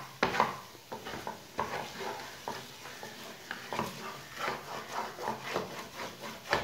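Wooden spatula stirring and scraping a thick grated-coconut and milk mixture around a nonstick frying pan, in short strokes about twice a second; the milk has cooked fully dry.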